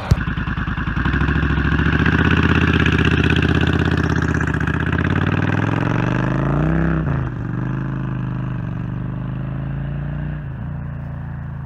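1987 Suzuki Intruder 1400's V-twin engine pulling away and accelerating. It climbs in pitch, shifts up about seven seconds in and again near the end, and grows gradually fainter as it moves off.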